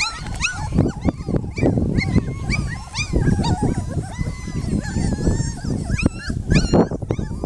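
Young Brittany puppies whimpering and yipping in many short, high squeals, over a low rumbling noise.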